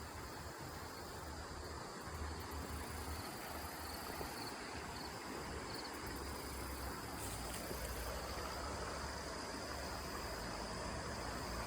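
Steady outdoor ambience: insects chirring in a high, even band over the wash of flowing creek water, with a low rumble underneath.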